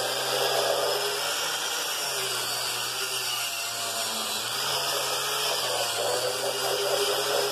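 Cordless drill spinning a wire cup brush against the metal base of an old drill press stand, a steady whir of the motor under the scratchy hiss of the bristles scrubbing off rust and grime.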